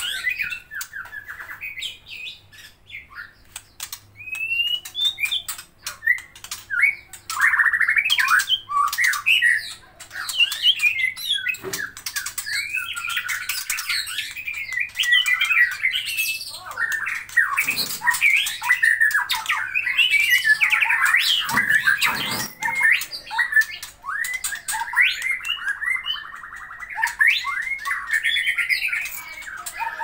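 Caged white-rumped shama singing an almost continuous, varied song of quick whistles, chirps and harsh notes. A few dull thumps come through around the middle.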